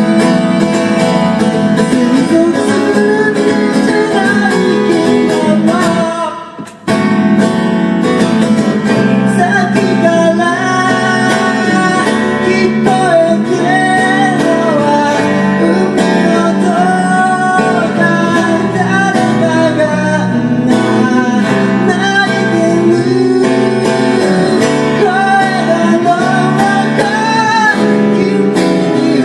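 A song performed live with acoustic guitar and singing, breaking off briefly about six seconds in before carrying on.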